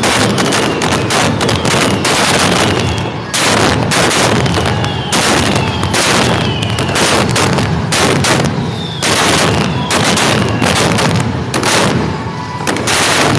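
Fireworks display: a dense, loud barrage of bangs and crackling, with several short whistles that fall in pitch.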